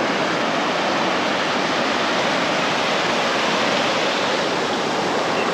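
Surf washing on the shore in a steady rush, with no distinct breaks.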